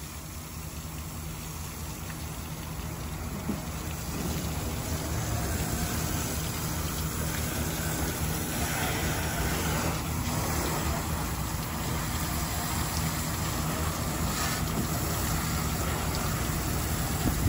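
A motor running steadily with a low hum and a rushing noise over it, growing gradually louder.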